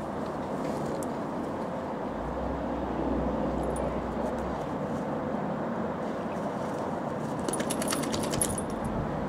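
Steady wind noise on the microphone. Near the end a St. Bernard shakes snow off its coat, a quick burst of rapid rattling that lasts about a second and a half.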